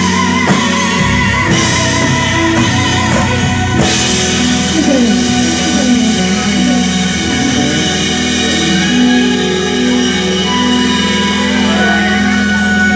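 Live gospel band playing rock-style music with drum kit, electric guitar and sustained low chords. The drum strikes thin out after about four seconds, leaving held chords with guitar lines over them.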